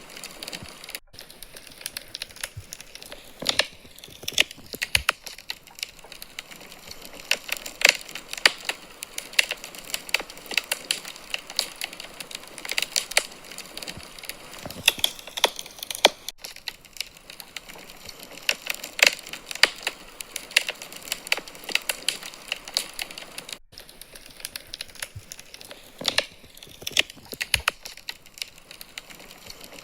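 Wood fire crackling in a fireplace: irregular pops and snaps, some loud and sharp, over a steady hiss.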